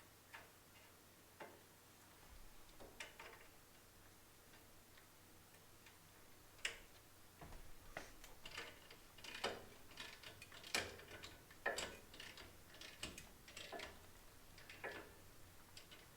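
Faint, irregular clicks and light metallic knocks of hand tools and parts being handled during front wheel bearing hub work. They come sparsely at first, then more often and a little louder from about six seconds in.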